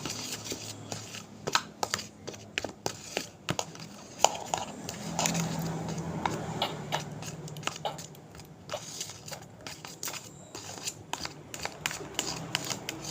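Slime mixture of clay, water and soap being stirred and mashed in a container, giving irregular small clicks and crackly, squishy handling noises.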